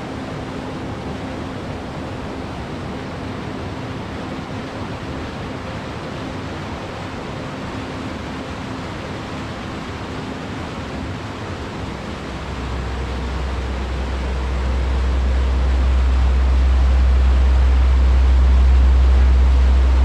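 White-water rapids of a mountain stream rushing, a steady hiss of water. About twelve seconds in, a deep low rumble comes in and swells until it is the loudest part of the sound.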